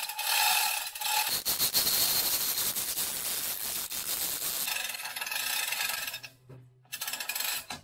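Manual chain hoist worked by its hand chain, lifting a heavy cast-iron mill casting in a sling: a continuous metallic rattling and clicking of chain links running over the hoist wheel. It stops about six seconds in, then comes one more short burst near the end.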